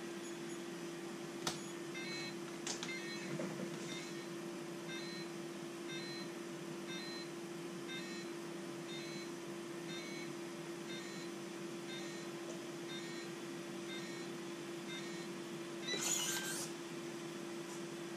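A series of short, high electronic beeps, about two a second, over a steady low hum, with a brief rustle near the end.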